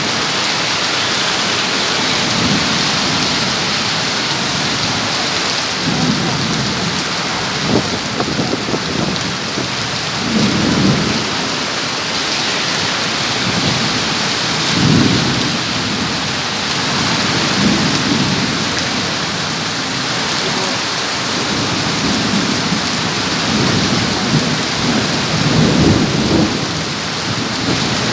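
Heavy rain pouring steadily in a storm, with low rumbles swelling and fading every few seconds.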